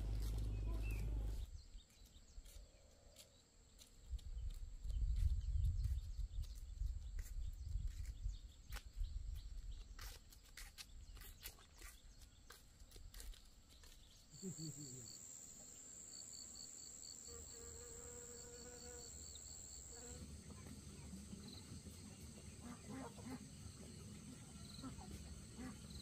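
Insects chirping: a steady high trill with a rapid pulsing chirp over it for several seconds past the middle, then a fainter steady trill. Before that, the loudest sound is a low rumbling with scattered clicks and knocks, and at the very start a low hum cuts off abruptly.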